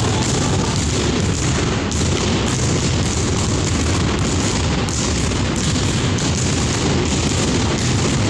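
Many basketballs dribbled on wooden gym benches, each player bouncing two balls at once. The bounces overlap into a steady, loud, continuous din of thuds.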